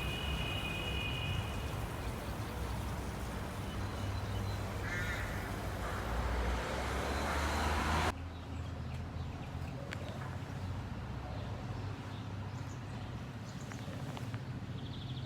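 Steady outdoor noise with a low rumble, and a short bird call about five seconds in. The noise drops suddenly to a quieter background about eight seconds in.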